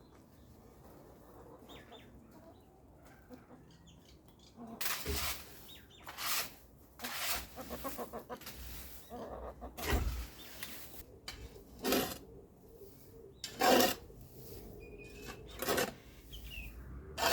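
Garden hand tool scraping and scooping through wood chips and sand in short strokes, roughly one every one to two seconds, starting about five seconds in.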